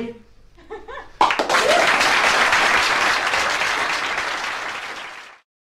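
Live audience applauding at the end of a folk song. The clapping breaks out suddenly about a second in, holds loud, then tapers and cuts off near the end.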